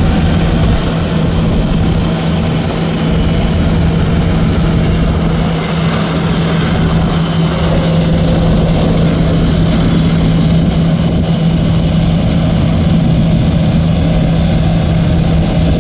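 Jet airliner's engines at takeoff thrust: a loud, steady roar as it rolls down the runway, lifts off and climbs away, with a steady low hum underneath.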